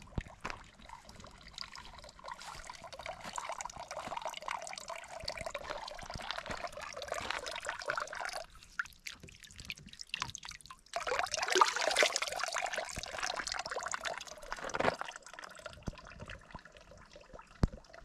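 Water pouring and trickling. It stops for a couple of seconds about halfway through, then pours more strongly for a few seconds.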